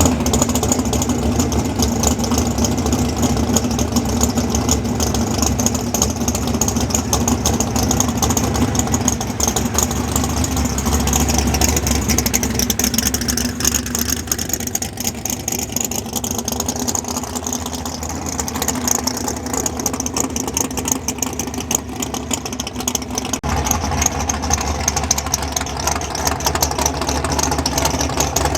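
Big-block Chevy race car engine running at a steady idle, with an abrupt change in the sound about three-quarters of the way through.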